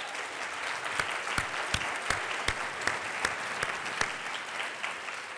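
Audience applauding: a steady patter of many hands, with a few louder individual claps standing out at about three a second, easing off near the end.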